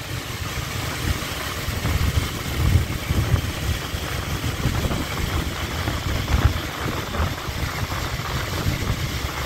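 Motorbike ride in city traffic: a small engine running, with wind rumbling on the microphone.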